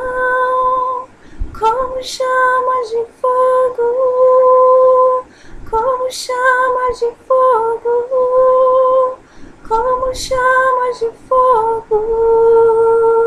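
A woman singing unaccompanied in long held notes with small dips in pitch, the phrases broken by quick breaths, in spontaneous worship.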